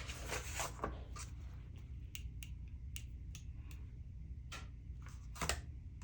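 Paper bills and cash envelopes being handled: scattered soft rustles and small clicks, with a louder rustle about five and a half seconds in, over a low steady hum.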